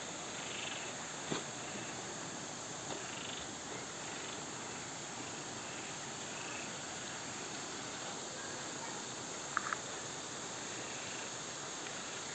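Steady rush of a small stream running over rocks, with a faint knock about a second in and a brief high chirp near the end.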